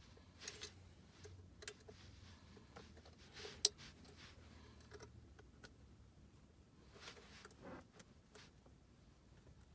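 Faint scattered clicks and rustles of hands handling plastic wiring-harness connectors on a steering-wheel airbag, with one sharper click a few seconds in.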